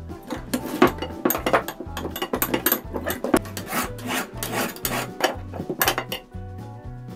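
A metal hand tool scraping and knocking against the rusty steel frame and springs of an old trap, in a quick run of rasping strokes that stop near the end, over background music.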